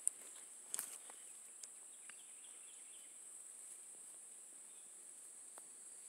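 Steady high-pitched drone of insects, with two sharp clicks in the first second.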